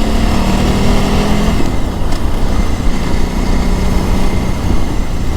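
KTM 950 Adventure S's LC8 V-twin engine running steadily while riding off-road. The engine note changes about a second and a half in, then settles into a slightly lower steady note, over a constant low rumble.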